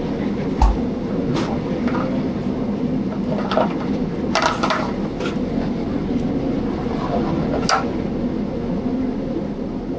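Steady rumbling noise of a commercial kitchen line, with gas range burners and the exhaust hood running. A handful of sharp metal clinks are spread through it as sauté pans are moved and handled on the range.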